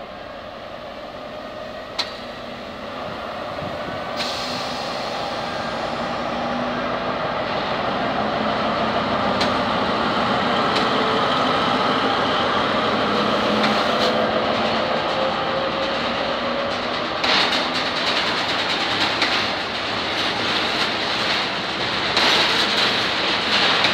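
An SNCF Fret BB 75000-series diesel-electric locomotive passes, its engine drone growing louder as it comes by. About two-thirds of the way in, the rolling of loaded flat wagons takes over, with clicks of wheels over rail joints.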